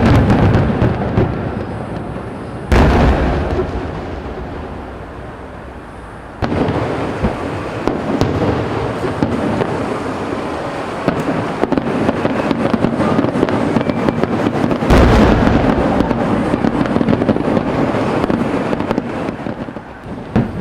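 Aerial fireworks bursting: deep booms overlaid with dense crackling. Heavy booms land about three seconds in and again about fifteen seconds in.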